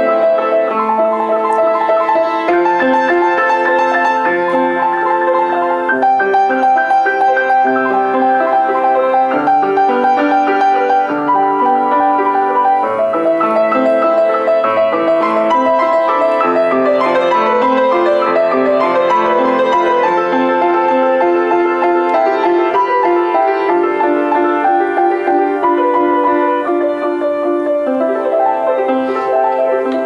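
Solo grand piano playing an improvised piece. Overlapping notes run on without a pause.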